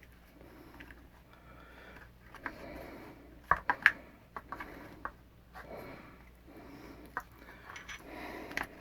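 Handling noise from a rubber pistol grip being worked onto a metal pistol frame: soft rustling with a few sharp clicks and taps, the loudest two close together about three and a half seconds in.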